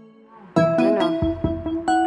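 Background music: a held keyboard chord fades away, then a new phrase with a steady beat comes in about half a second in.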